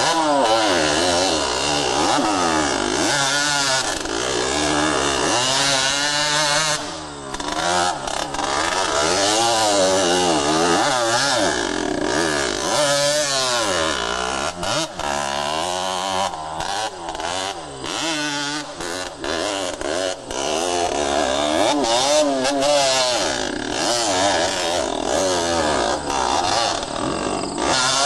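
Dirt bike engine revving up and down under load, its pitch rising and falling again and again, with brief dips as the throttle is let off about seven seconds in and several times in the middle.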